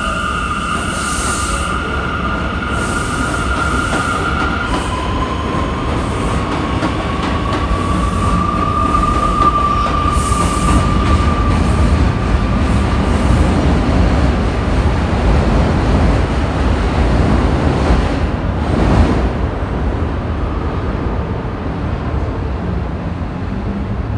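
R179 subway train pulling out of an elevated station. A steady high whine gives way, about five seconds in, to a single tone rising slowly over the low rumble of wheels on the elevated track. The rumble swells with a clank and then fades as the train leaves.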